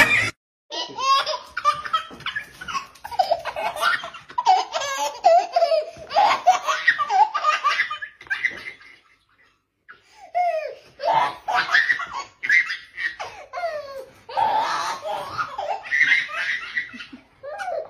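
Laughter in long, repeated bouts, broken by a pause of about a second around nine seconds in.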